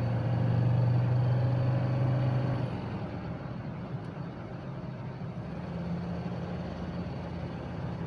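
Mercedes-Benz W123 300D's five-cylinder turbodiesel pulling hard at full throttle under kickdown. About two and a half seconds in it drops to a quieter, steady running note.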